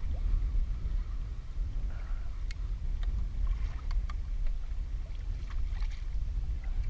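Wind rumbling on the microphone and choppy water sloshing against a kayak, with scattered light clicks and taps.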